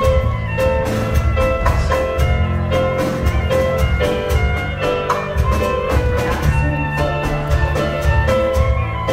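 Live contra dance band playing a dance tune: a melody line over bass, with a steady, even beat.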